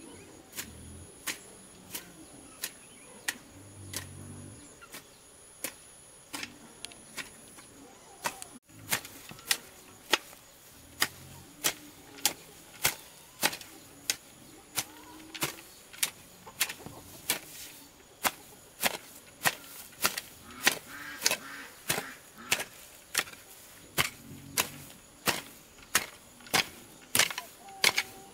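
Garden hoe chopping into soil and weeds with sharp, regular strikes, about one and a half a second, a little sparser in the first third.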